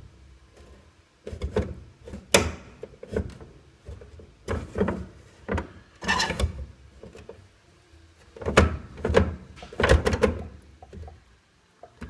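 Cotton laundry being loaded and pushed into the drum of a Samsung 7.5 kg washing machine: a string of irregular soft thumps and rustles, about eight in all.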